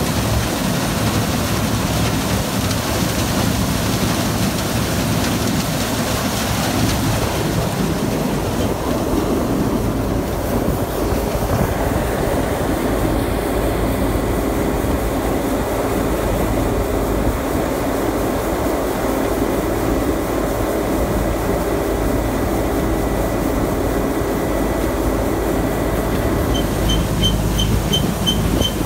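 Combine harvester running steadily under load, its engine and threshing machinery making a constant loud noise. Near the end, a rapid electronic beeping starts at about three beeps a second.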